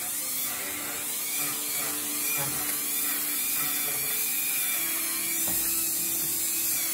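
Handheld rotary tool running steadily with a thin whine as its bit carves the dead wood of a bonsai trunk; its pitch steps up slightly about two-thirds of the way through.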